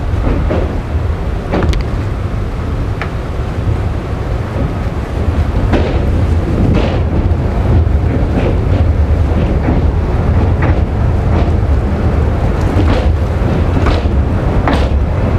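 Passenger train running over the steel spans of the Pamban railway bridge, heard from the open door: a steady low rumble with irregular clanks of the wheels on the rails, and wind buffeting the microphone. It grows a little louder about six seconds in.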